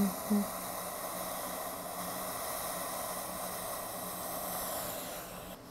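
Steady hiss of a facial steamer (vaporizer) running, with a faint low hum underneath; it cuts off abruptly near the end.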